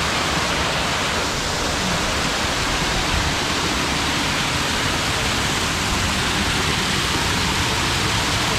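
Small waterfall splashing steadily: an even, loud rush of falling water.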